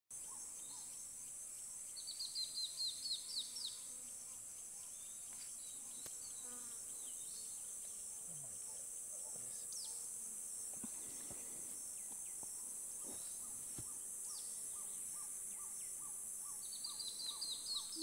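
Rainforest ambience: a steady high insect drone, with a bird singing a quick run of high, falling notes twice, about two seconds in and again near the end, and scattered other bird calls.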